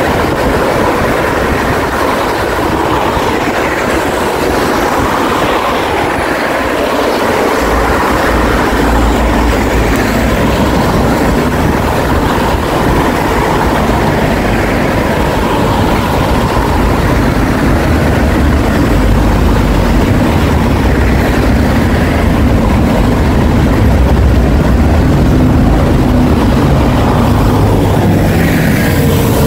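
Steady city traffic noise from cars passing on a wide multi-lane road, with a deeper low rumble joining about eight seconds in.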